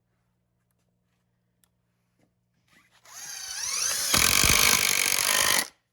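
Power drill spinning up with a rising whine, then driving a screw into a wooden board for about a second and a half before stopping abruptly; the screw is splitting the wood.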